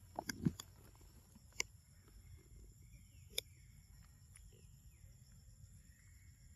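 Quiet forest ambience: a steady, high-pitched insect drone, with faint chirping calls in the middle and several sharp clicks, most of them in the first couple of seconds.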